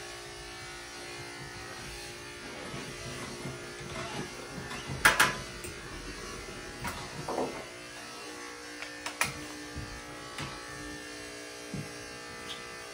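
Steady electric buzz of a running grooming tool's motor, with a few short sharp clicks over it, the loudest about five seconds in.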